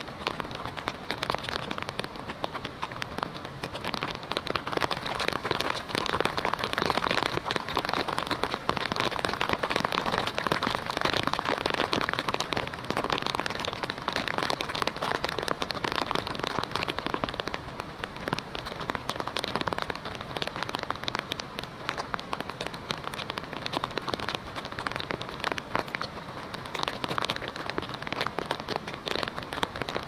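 Steady rain falling, heard as a dense, even crackle of many drop hits that does not let up.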